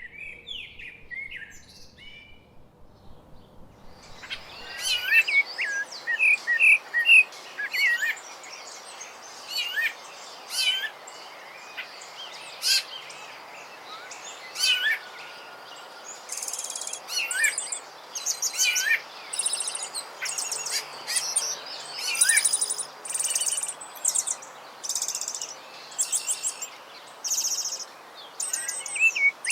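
Rufous-bellied thrush (sabiá-laranjeira) singing short whistled phrases with sliding notes. Over the second half, a high buzzing sound repeats again and again above the song.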